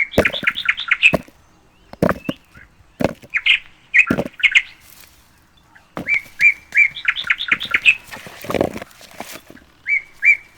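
A songbird singing the same short phrase again and again, a few separate notes followed by a quick run of rising notes, about every three to four seconds. Short knocks or rustles sound between the phrases.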